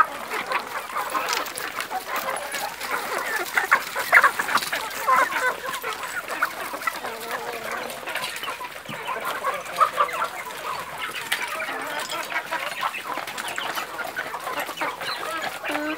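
A flock of free-range chickens clucking while they feed, many short calls overlapping throughout.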